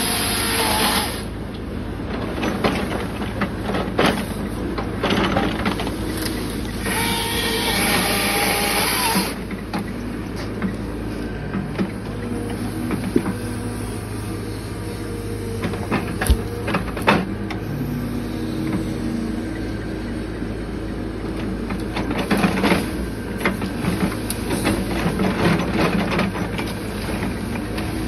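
CAT 311F excavator's diesel engine and hydraulics running under load as the grapple saw on its arm grips, cuts and tears through brush and small trees. There are two longer bursts of saw noise, one right at the start and one around seven to nine seconds in, and sharp cracks of branches snapping throughout.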